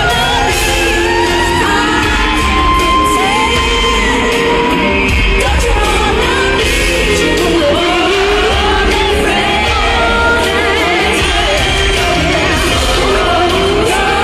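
Live amplified pop music in a large arena: a female vocal group sings into microphones over a heavy bass backing, with shouts and whoops from the crowd.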